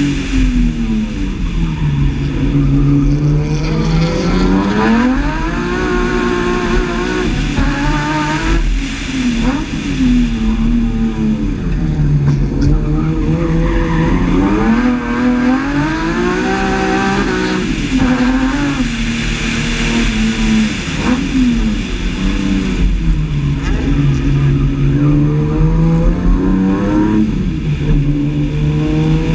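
BMW E30's S50B32 3.2-litre straight-six engine under hard driving, revving up and dropping back over and over as the car accelerates, brakes and turns through a cone course, with a deep fall in pitch about every five seconds.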